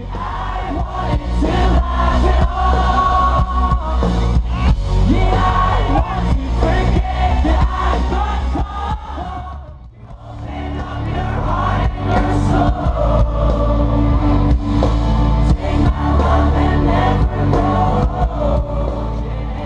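Live band music through a large festival PA, with singing and heavy bass, amid a cheering crowd. The music drops away briefly about ten seconds in and then comes back in.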